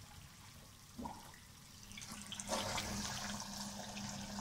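Cream and flour cooking down in a pan of ghee, sizzling: the ghee has separated from the milk solids. The sizzling is soft at first, with one light knock about a second in, and gets louder and more hissing from about two and a half seconds in.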